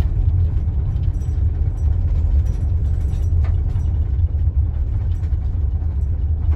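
Steady low rumble of a Nissan NV200 van driving slowly on a gravel dirt road, heard inside the cab: engine and tyre noise, with a couple of faint clicks.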